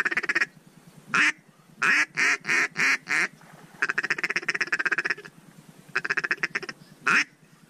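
Mallard duck call blown by a hunter: runs of fast, even feeding chuckles broken by single loud quacks, with a string of five quacks about two seconds in and a longer chuckle run about four seconds in.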